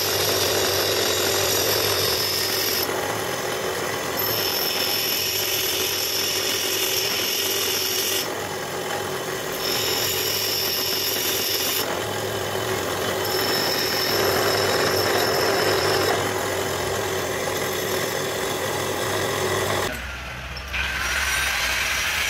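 Bench grinder running with a steady hum while a lathe cutting tool is pressed against the spinning wheel in several passes, each pass adding a high grinding hiss, with short pauses between them. The sound changes near the end.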